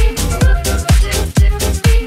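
Electro swing dance music with a steady kick drum about two beats a second.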